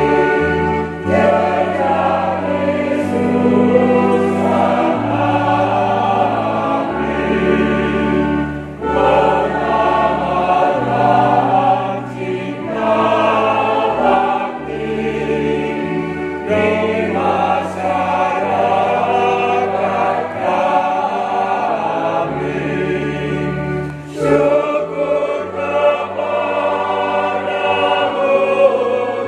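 Mixed church choir of men and women singing a hymn in parts, with keyboard accompaniment holding sustained bass notes that change every second or two.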